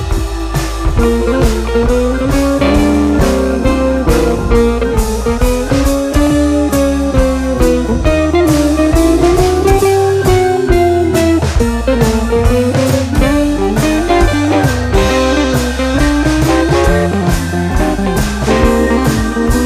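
Background music: a blues-style guitar melody with bending, gliding notes over a steady bass and drum beat.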